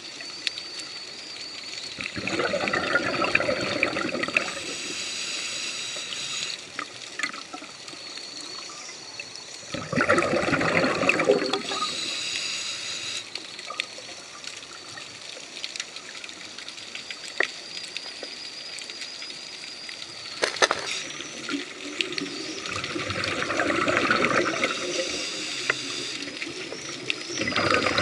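Underwater scuba breathing: the diver's exhaled bubbles from the regulator gurgle past the microphone in rushes of a few seconds, roughly every eight to twelve seconds, with a quieter hiss between breaths.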